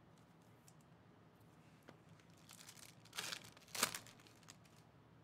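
Foil trading-card pack wrapper being torn open and crinkled: faint crackles, then two short, louder rips about three and four seconds in.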